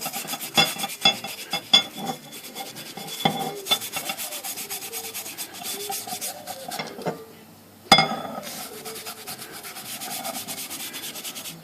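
A brush scrubbing WD-40 into the painted front rail of an Underwood 5 typewriter in quick back-and-forth strokes. The scrubbing breaks off briefly about seven seconds in, a sharp knock follows, and then the brushing goes on.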